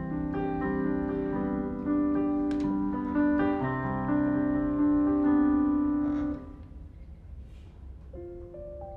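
Digital piano played slowly, chords and single notes held and overlapping. The playing drops away about six and a half seconds in, and a few softer notes follow near the end.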